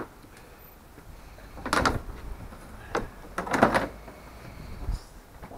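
Stiff black plastic trunk liner of a Toyota MR2 Spyder being lowered and pushed into the front luggage compartment: a few short knocks and scraping rubs of plastic against the bodywork, in clusters about two seconds in and about three and a half seconds in, then a dull thump near the end.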